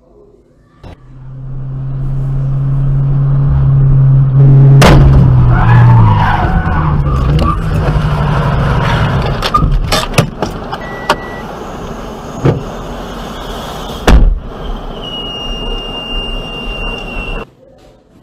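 Vehicle crash audio from a dashcam: a loud low steady tone swells for a few seconds and breaks off in a sharp crash, followed by crunching and clatter. More hard impacts come later, then a high steady beep for a couple of seconds before the sound cuts off.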